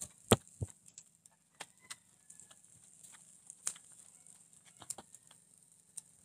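Pork chops grilling over a charcoal fire: irregular sharp pops and crackles over a faint steady sizzling hiss. The loudest pop comes about a third of a second in.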